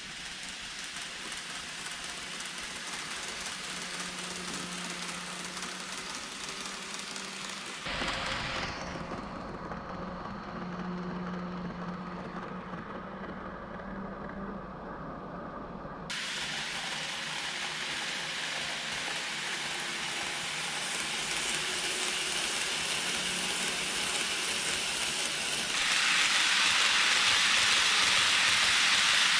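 KATO N-gauge model train (683 series Thunderbird) running on layout track: a steady hissing rattle of the wheels on the rails with a faint motor hum. It changes abruptly twice and gets louder near the end as the train passes close.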